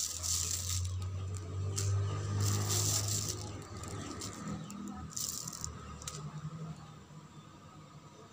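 Thin plastic bag crinkling in three bursts as dried red chillies are picked out of it and dropped into a stone mortar, with a light pattering of the dry chillies. A steady low hum sits underneath and fades after about three seconds.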